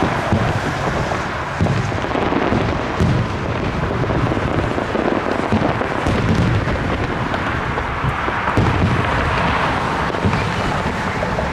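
Fireworks display: shells going off in quick succession, their booms running together with no gaps.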